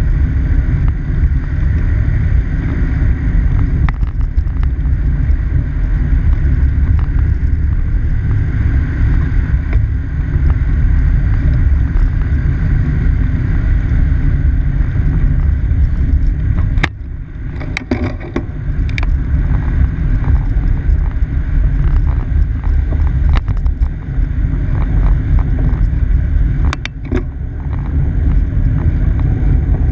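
Steady rumble of freeway traffic on Central Expressway below, mixed with wind rushing over a bicycle-mounted camera's microphone as the bike rolls across the bridge. The rumble drops briefly, with a few clicks, about 17 seconds in and again near 27 seconds.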